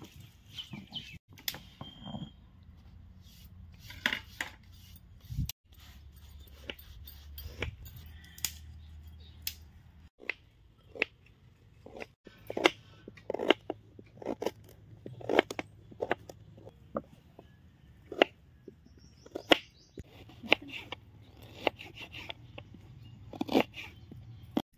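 Irregular sharp clicks and knocks of kitchen work: utensils and dishes being handled and set down, more frequent in the second half.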